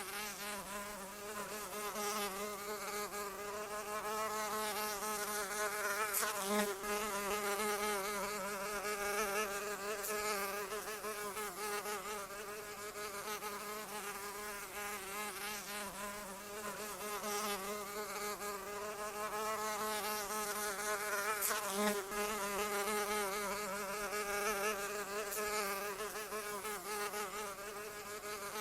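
A flying insect buzzing without a break, its pitch wavering slightly and its loudness swelling and fading, loudest about a quarter of the way in and again about three quarters in.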